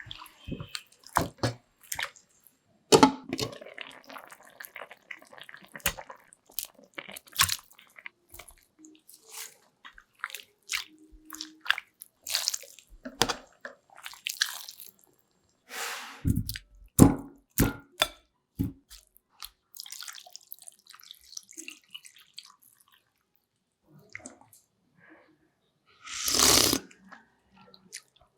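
Kitchen work sounds while cooking: scattered clicks and knocks of utensils and ingredients, with a few short bursts of water-like noise, the longest near the end.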